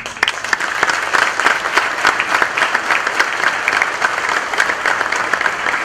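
Audience applauding: many hands clapping steadily, breaking out all at once.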